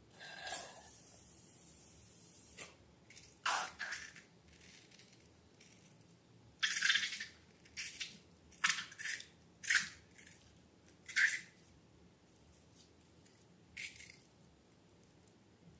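Slime being squeezed and handled: about ten short, separate squishing sounds at irregular intervals.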